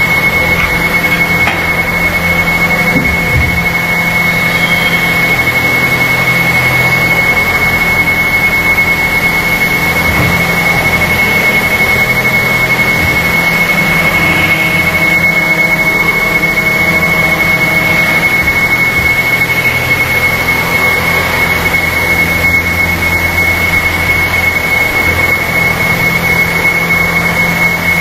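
Plastic injection molding machine running steadily: a continuous mechanical hum with a thin, high whine held throughout and no distinct clunks.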